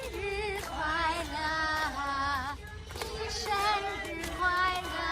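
High voices singing a melody, the held notes wavering with vibrato, in phrases with a brief break about halfway through.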